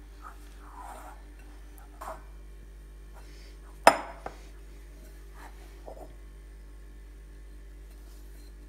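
Hands kneading soft, wet dough in a glass bowl, with a few soft squelches. About four seconds in there is a sharp clink against the glass bowl, then a smaller one just after, over a steady low hum.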